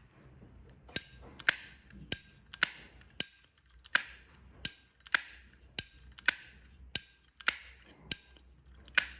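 Brass 1986 Zippo lighter's hinged lid being flicked open and snapped shut over and over, about two sharp metallic clicks a second, each with a short bright ring.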